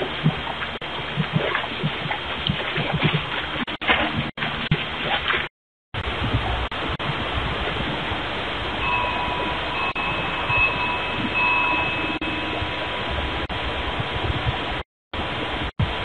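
Steady hiss from a Ring doorbell camera's microphone, with a few short low grunts from javelinas in the first few seconds. The sound drops out for a moment about five and a half seconds in, and a faint thin high tone comes and goes a little after the middle.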